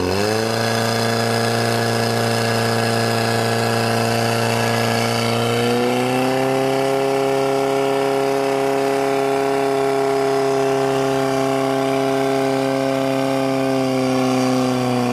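Engine of a portable fire pump running at high revs, driving water through the attack hoses. Its pitch climbs at the start and steps up again about six seconds in, then holds steady.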